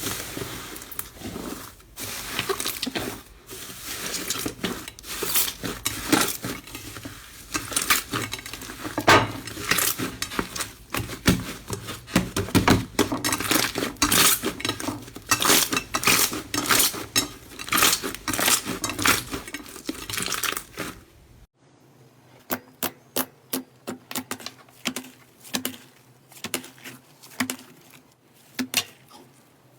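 Slime being squeezed and pressed by hand, a dense run of crackling clicks and pops. About two-thirds of the way through it changes abruptly to quieter, sparser pops.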